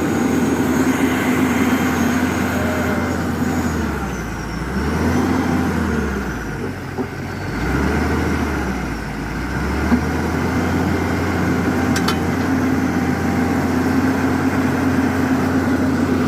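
Hyundai Robex 220-7 excavator's diesel engine running steadily under work, its low note sagging and coming back a few times in the middle. A single sharp click sounds about ten seconds in.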